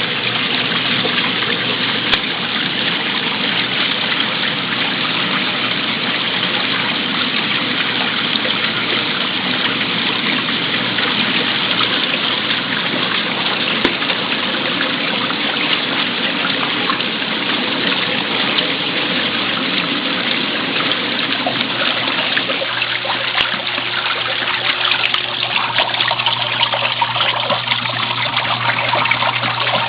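Mueller 10 kg washing machine during its fabric-softener rinse: water gushing steadily into the tub. About 22 seconds in the sound changes, thinning out over a steady low hum.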